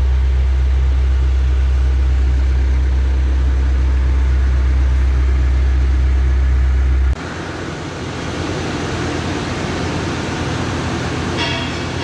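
Diesel engine of an Ajax ARGO 4000 self-loading concrete mixer idling with a steady low hum. About seven seconds in the sound cuts abruptly to a quieter, noisier machine running sound without the deep hum.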